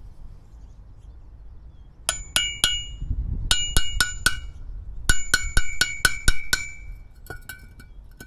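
Hammer striking metal in three runs of quick blows, about four a second, each blow ringing with a clink; a few lighter taps near the end.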